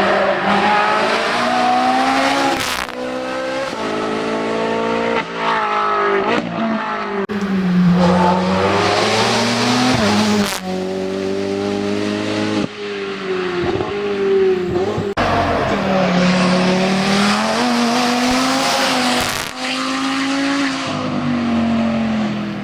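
Hill-climb race car engines at full throttle, the pitch climbing and dropping sharply at each gear change, in several short passes cut one after another.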